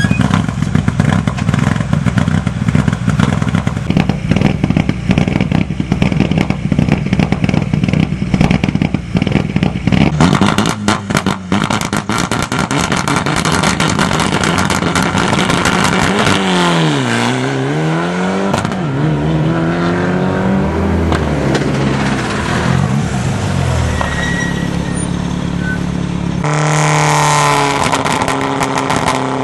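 Mitsubishi Lancer Evolution rally car's turbo engine idling roughly at the start line with many sharp pops, then revving and pulling away, its pitch rising through the gears. Near the end, a Citroën DS3 rally car's engine comes in close and loud.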